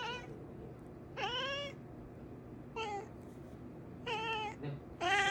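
Domestic cat meowing five times, short calls about a second apart, each rising and then falling in pitch; the second call is the longest.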